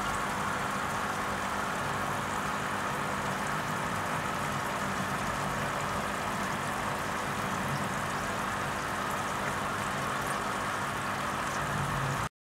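Steady machine-like hum with a hiss over it, unchanging, cutting off abruptly near the end.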